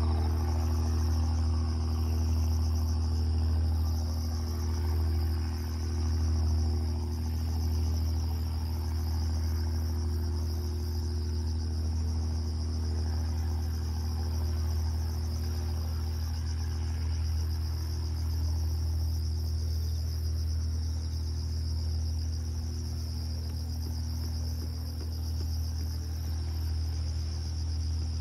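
Insects chirring in a steady, fast-pulsing high trill over a steady low hum.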